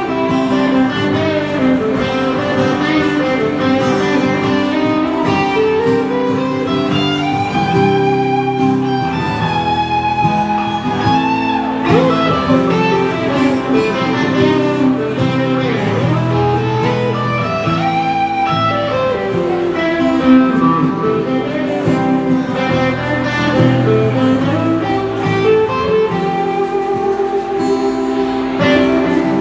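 A band playing an instrumental passage live: an electric guitar plays a melodic lead with bent, gliding notes over a strummed acoustic guitar.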